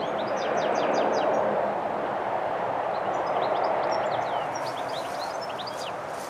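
Songbirds singing quick runs of short, high chirps, in two bursts, over a steady rushing background noise that swells and eases.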